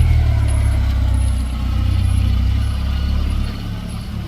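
Zastava 750's small four-cylinder engine running with a steady low rumble that eases slightly about three and a half seconds in.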